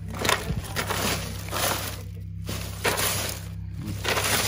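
Chilled Heineken beers being moved around in a cooler: crunching, glassy clatter in four bursts about a second and a half apart, over a steady low hum.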